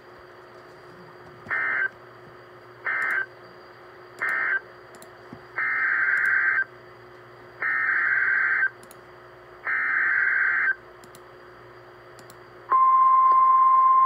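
NOAA Weather Radio Emergency Alert System data bursts from a weather radio: three short buzzy bursts (the end-of-message code for the flash flood warning), then three longer one-second bursts (the coded header of the next alert), over steady radio hiss. Near the end a loud, steady 1050 Hz warning alarm tone starts and holds, announcing the severe thunderstorm warning.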